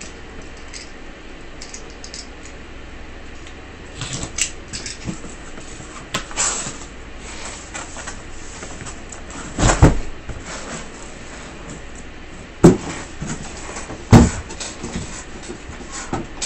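A cardboard shipping case being opened and the sealed card boxes inside lifted out and stacked. There is cardboard rustling and scraping, then three sharp thuds in the second half as boxes are set down.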